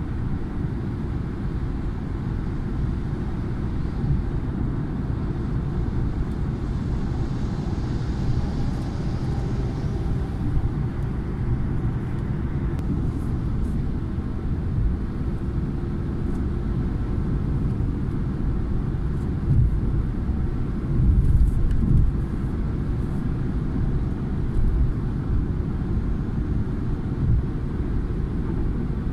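Car cruising on a motorway, heard from inside the cabin: a steady low rumble of tyres, road and engine, briefly louder about twenty seconds in.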